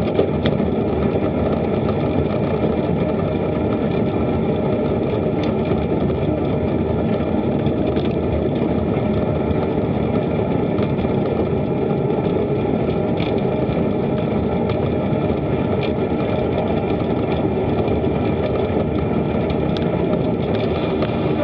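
Steady wind rushing over an action camera's microphone while cycling, with a few faint clicks.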